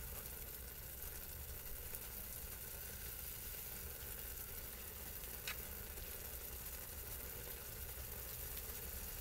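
Instant noodles simmering and sizzling in a little sauce and water in a pan while being stirred and lifted, a steady hiss. One short click about five and a half seconds in.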